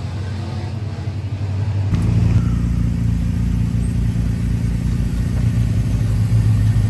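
Background music for about two seconds, then an abrupt change to a car engine running with a deep, steady low rumble that grows slightly louder.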